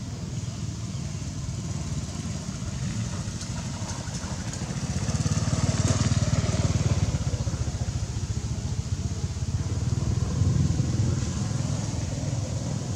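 Low rumble of a motor vehicle engine, swelling louder about five seconds in and again around ten seconds.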